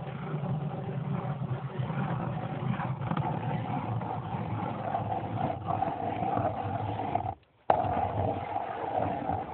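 Motor-driven ice auger boring a hole through lake ice, its motor running steadily under load. The sound cuts out for a moment near the end, then resumes.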